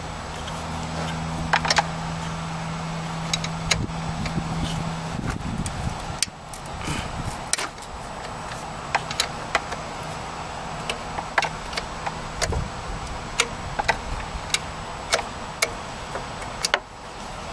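Irregular sharp metallic clicks and clinks of hand tools and fingers working the alternator's wiring plug and 10 mm terminal nut, some coming in quick little runs. A low steady hum underneath stops about five seconds in.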